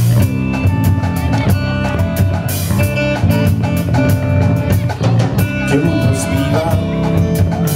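Live rock band playing an instrumental passage: electric guitars over a drum kit, with held notes and a steady beat.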